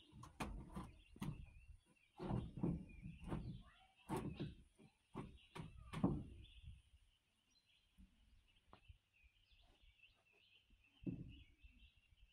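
Irregular wooden knocks and thumps as rough-cut trim boards are handled and fitted at a log cabin's eaves, thick for the first half and again once near the end. Birds chirp, plainest in the quieter stretch between the knocks.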